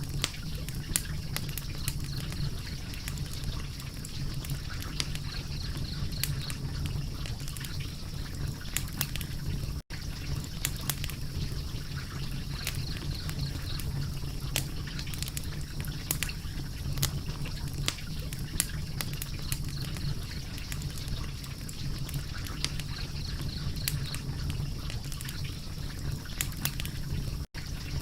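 Wood fire crackling: irregular sharp pops and snaps over a steady low hiss and rumble. The sound cuts out for an instant twice.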